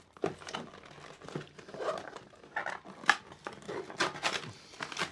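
Printed cardboard box being handled and torn open by hand: irregular rustling and crinkling, with a few sharp snaps about three and four seconds in.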